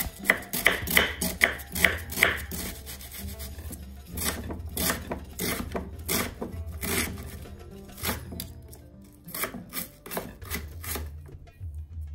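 Kitchen knife slicing through onion and tapping the wooden cutting board in a long series of strokes, roughly two to three a second, with a few short gaps.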